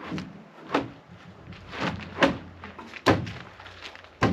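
Wooden 2x8 boards knocking as they are set into a pickup truck bed: about half a dozen sharp knocks, irregularly spaced.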